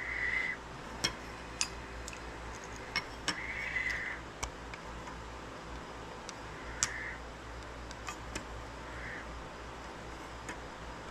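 Light clicks and taps with several short, high squeaks, each about half a second long, as a candle is worked off a shop-made metal candle holder.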